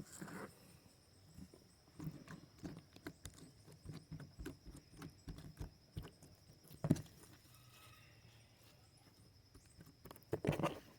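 Slime packed with foam beads being kneaded and squeezed by hand, giving irregular small crackles and pops, with one louder pop about two-thirds of the way through. This is the crunchy sound of the beads and trapped air bubbles in the slime.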